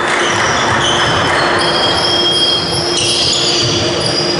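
Basketball game in a sports hall: players' shoes squeaking briefly again and again on the wooden court, with a ball bouncing and the hall echoing.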